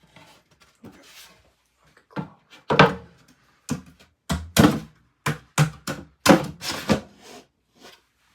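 About a dozen irregular knocks and thuds, some with a short scraping tail, from wooden window trim pieces being handled and set in place.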